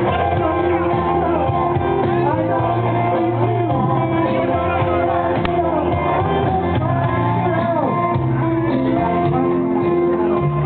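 Man singing karaoke into a microphone over a loud backing track played through the bar's sound system.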